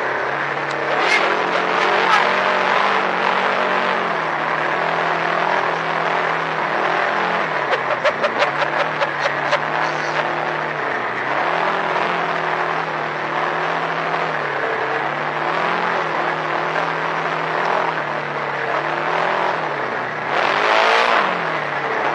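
Polaris RZR 1000 side-by-side's parallel-twin engine running at a steady cruising pace, heard from inside the cab, its note dipping and picking up again a few times along with tyre and rattle noise. About eight seconds in there is a quick run of rattling clicks, and shortly before the end a louder rush of noise.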